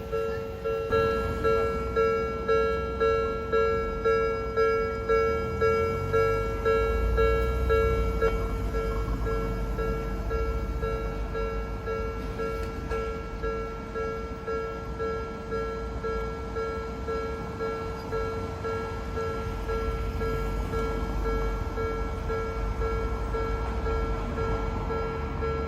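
Japanese railway level-crossing warning bell ringing, a repeating electronic ding about one and a half times a second. From about six seconds in, the low rumble of a passing train rises under it and the bell carries on through it.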